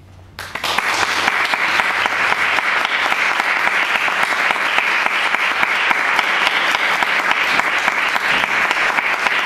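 Audience applauding: the clapping starts suddenly about half a second in and keeps going steadily.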